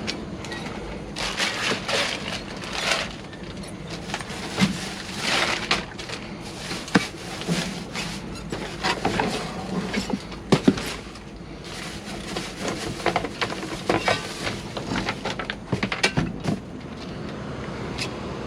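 Hands rummaging through a pile of packaged goods and junk: packaging rustling, with irregular knocks and clatter as items are shifted.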